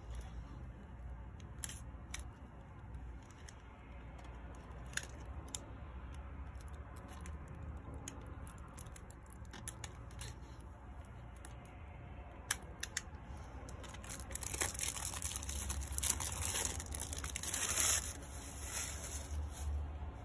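Plastic shrink-wrap on a CD jewel case being slit with a small knife and peeled off. There are scattered small clicks and scrapes, then a louder spell of crinkling, tearing plastic in the second half.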